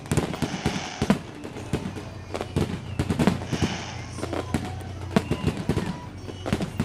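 Aerial fireworks going off in a rapid string of bangs and booms, with bursts of crackling shells about half a second in, around three and a half seconds in, and near the end.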